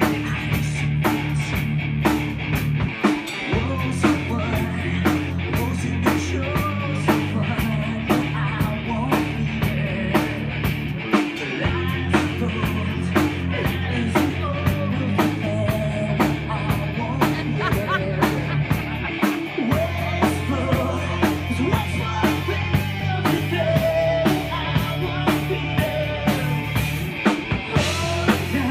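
Live rock band playing an original song: a drum kit keeps a steady beat over a held bass line, with melodic guitar lines above.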